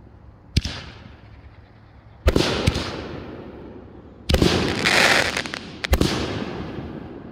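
Aerial fireworks bursting in a run of sharp bangs: a single bang about half a second in, then a string of louder ones from about two seconds on, each trailing off slowly. The longest tail follows the bang a little past four seconds.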